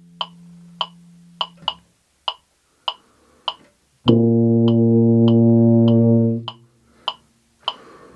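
Tuba playing a sustained whole note of about four beats, starting about four seconds in and stopping about two and a half seconds later, over a metronome ticking steadily at 100 beats per minute. The metronome clicks alone through the rests on either side of the note.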